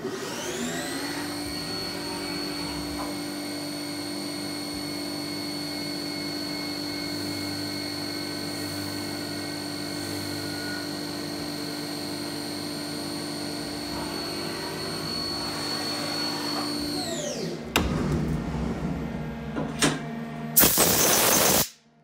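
CNC milling machine spindle spinning up and running at a steady, high whine while the end mill cuts a pocket into the Porsche short shifter's white plastic shift block. The spindle winds down about three-quarters of the way through. A few knocks follow, then a loud hiss about a second long near the end.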